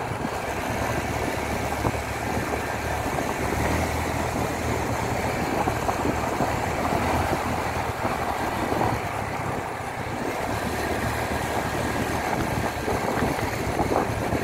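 A motorbike's engine running steadily as it is ridden along, with road and wind noise.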